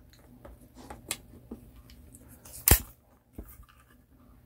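Light scattered clicks and snaps from handling a Crosman 357 CO2 revolver while it is being loaded, as its six-shot rotary clip goes into the gun. One sharper snap comes about two and a half seconds in.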